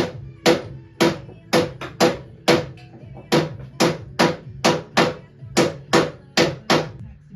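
Hammer blows on steel, about two a second, each with a short metallic ring, driving a headstock bearing into a KTM 450 motocross frame. There is a short pause around three seconds in, and the blows stop just before the end.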